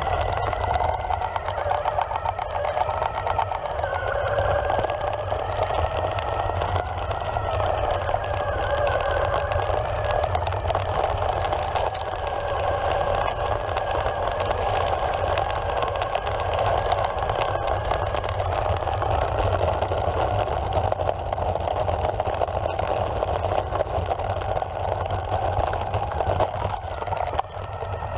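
Evolve Carbon GT electric skateboard's dual belt-drive motors whining as it rides over grass, the pitch wavering up and down with speed, over a steady low rumble. The sound dips briefly near the end.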